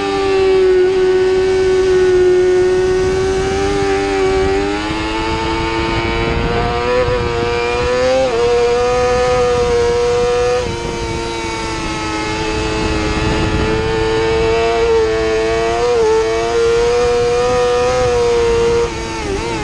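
A 2017 Yamaha YZF-R6's 600 cc inline-four engine at high revs under race riding, its pitch stepping up and down several times with gear changes. A steady rush of wind runs underneath. The engine drops briefly in loudness about eleven seconds in and again near the end as the throttle closes.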